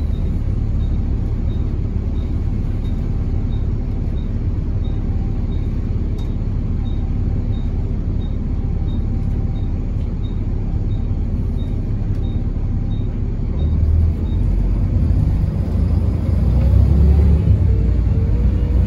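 Double-decker bus heard from its upper deck: a steady low engine and road rumble, with a regular light ticking, a little under two a second, that stops about thirteen seconds in. After that the rumble grows louder, and near the end a whine rises steadily in pitch as the bus gathers speed.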